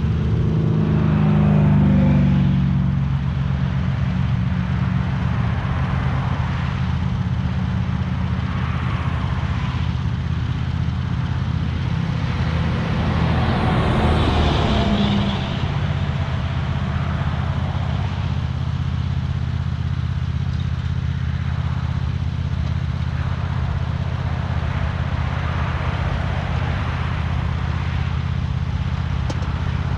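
Small gasoline engine running steadily under load while cutting overgrown grass, briefly louder about two seconds in and again around the middle.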